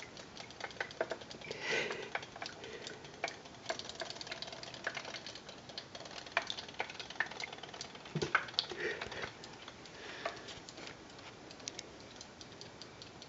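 Faint irregular clicking and ticking from battery-powered robotic fish toys swimming in a water-filled sink.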